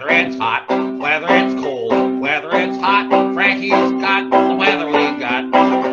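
Lively folk tune on harmonica with a plucked string instrument, sustained harmonica chords over a quick strummed rhythm.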